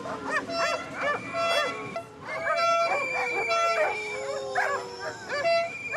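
Dogs barking rapidly and repeatedly, over several long, steady high-pitched tones and a lower tone that slowly falls in pitch.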